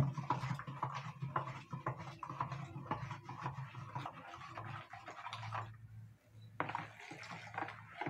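Faint crackling and light clicks over a low steady hum, then, from about a second and a half before the end, liquid pouring from a measuring jug into a plastic basin of foamy soap mixture: baking soda dissolved in water.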